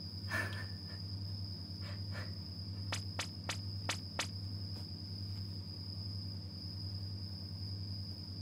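A hand patting a cat's rump: a quick run of about five light taps, three to four seconds in, with a few fainter ones earlier. Under them a steady low hum and a faint high whine.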